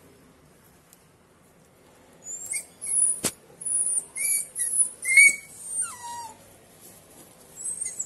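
Puppy squealing in a run of high, sliding cries for about four seconds, then once more near the end, while tumbu fly (Cordylobia) larvae are squeezed out of its skin: a pain response to the extraction. A single sharp click about three seconds in.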